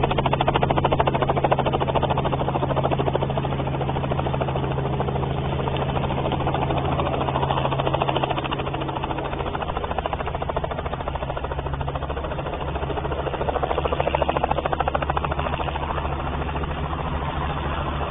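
Robinson R44 helicopter's six-cylinder Lycoming piston engine and rotors running with a steady drone and a fine rapid pulsing; the pitch of the low hum shifts about ten seconds in.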